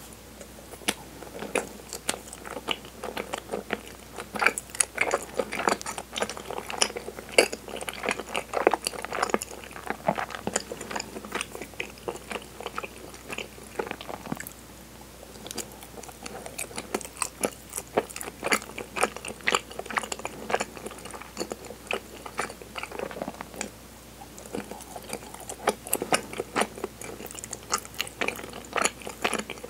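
Close-miked chewing of soft, sticky kinako-coated cinnamon chigiri mochi: a dense run of small, sharp, wet mouth clicks. There is a short lull about halfway through, then the chewing resumes.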